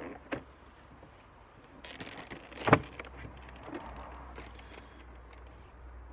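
Hands working on a car's interior door panel: scattered clicks and rustling, with one sharp knock a little under three seconds in, over a low steady rumble.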